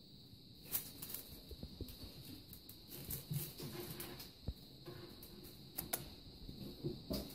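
Kittens scrambling and pawing at a feather wand toy on a nubby fabric mat: scattered soft taps, scuffs and rustles, with a few sharper clicks, over a faint steady high hiss.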